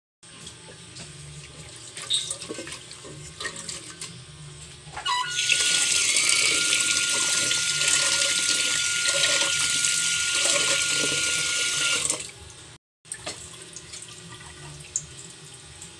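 Water running from a tap into a sink, turned on about five seconds in and off some seven seconds later, with a thin steady whistle from the faucet while it flows. Softer scattered clicks and knocks come before and after.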